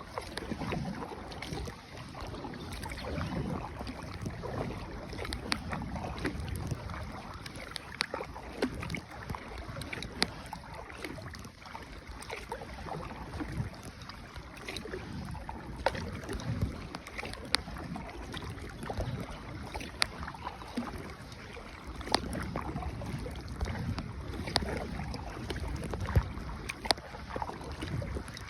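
Paddles working a rowboat on river water: steady splashing and sloshing, with a sharp knock every couple of seconds, and wind on the microphone.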